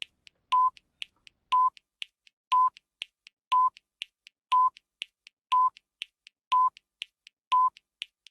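Countdown timer sound effect: a short beep once a second, eight in all, with faint ticks between the beeps, timing a classroom activity.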